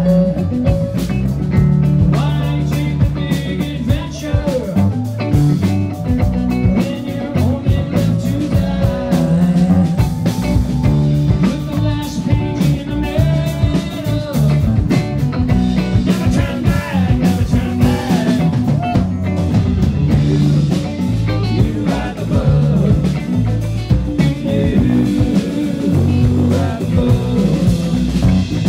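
Live rock band playing: electric guitar and drum kit in a full-band jam.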